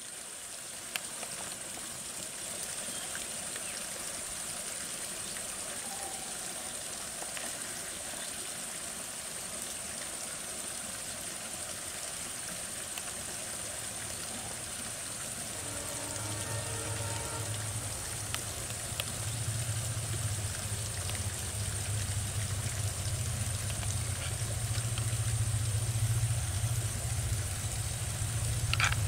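Diesel locomotive approaching. Its low engine hum comes in about halfway and grows steadily louder, over a steady high-pitched hiss.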